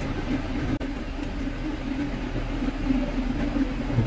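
A steady low rumble of background noise with a faint low hum under it; it cuts out for an instant just under a second in.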